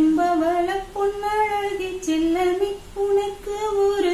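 A woman singing solo with no accompaniment audible, in short phrases of about a second each, holding and sliding between notes with brief breaths between them.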